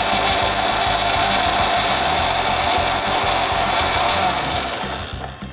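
Countertop blender motor running steadily, puréeing peeled lemon with lukewarm water, then dying away near the end.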